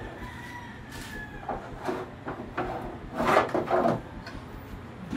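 Kitchen cabinet drawer with a plastic cutlery tray being pulled out on its runners and handled. The drawer and tray make a series of sliding and knocking sounds, loudest around three to four seconds in.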